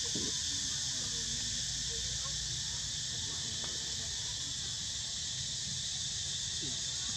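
Steady, high-pitched insect chorus buzzing without a break, over a low rumble.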